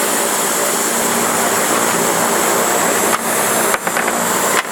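Loud, steady rushing noise with no clear pitch, cut by brief dips about three, three and three-quarters, and four and a half seconds in.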